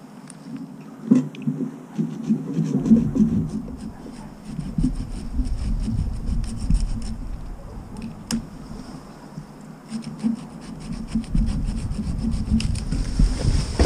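Irregular rubbing and scraping, with many small clicks and cracks, over a low rumble that starts about three seconds in.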